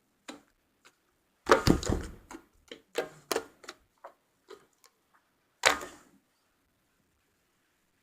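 Slime being squeezed and worked by hand, giving an irregular run of sticky clicks and pops. The larger squelches come about a second and a half in and again near six seconds.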